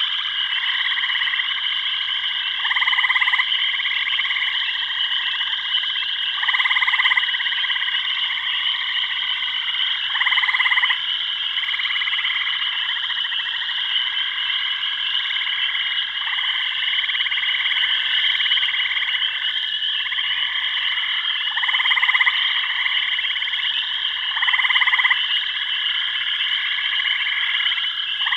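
Frog chorus: a steady high trilling throughout, with a louder croaking call repeating about every three to four seconds.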